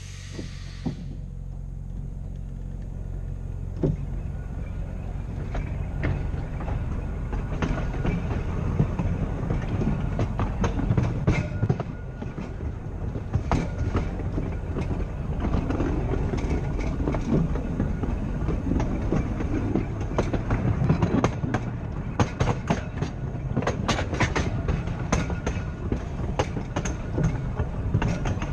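Open-topped Blackpool Boat tram car 606 running along the track: a steady low hum from its motors and running gear under a rattling clatter, with irregular sharp clicks of the wheels over rail joints. It gets louder over the first several seconds, then holds steady.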